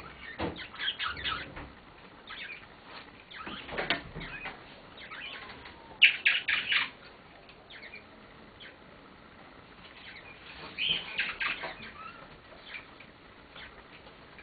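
Blue-mutation Indian ringneck parakeet making bursts of short chirps and clicks while it plays on its perch, in several separate bursts with the loudest about six seconds in.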